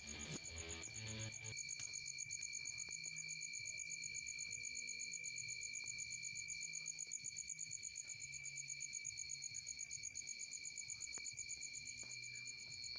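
Cricket singing: a continuous high-pitched trill that pulses quickly without a break. Background music fades out about a second and a half in.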